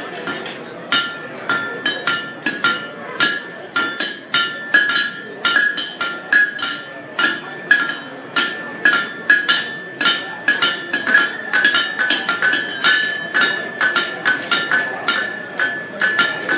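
Blacksmith's hand hammer striking hot steel on an anvil in a steady rhythm, about two to three blows a second, each blow ringing.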